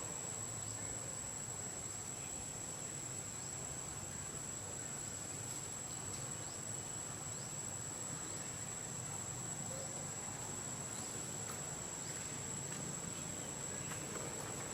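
Insects droning: one continuous high-pitched tone that does not change, over a low background hiss.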